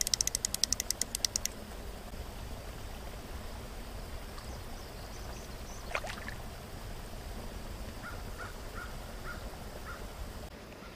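A fly reel's click drag ratcheting in a rapid run of clicks for about a second and a half while a smallmouth bass is played on a light fly rod. About six seconds in there is a single splash as the fish is landed in shallow water. Near the end a bird calls a series of six short notes over the low outdoor background.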